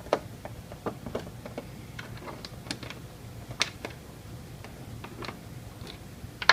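Irregular small clicks and ticks of a Phillips screwdriver working screws out of a motorcycle's plastic battery access panel. The clicks come unevenly, a few to the second.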